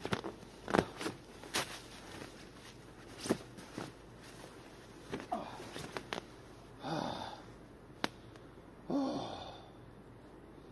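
A man shifting in a hammock. In the first few seconds there are sharp clicks and rustles, with another click at about eight seconds. In the second half come three short, breathy exhalations, the last one falling in pitch.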